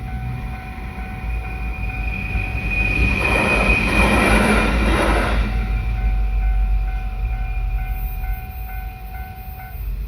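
Japanese railway level-crossing alarm ringing in a steady repeating pattern of about two dings a second while a train runs over the crossing, its wheel and track noise swelling and fading in a few seconds. The alarm stops near the end.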